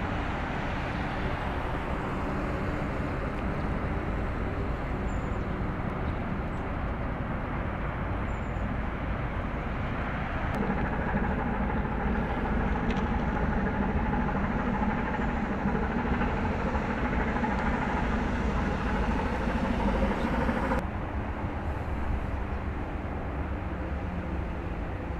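Steady low rumble and hiss of outdoor engine-like noise. About ten seconds in it changes abruptly and a steady hum joins it; about twenty-one seconds in the hum stops just as suddenly.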